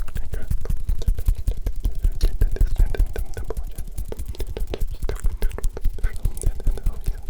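Close-miked ASMR hand sounds: fingers and palms rubbing, tapping and crackling right at the microphone in a rapid, dense run of small clicks, with unintelligible whispering mixed in.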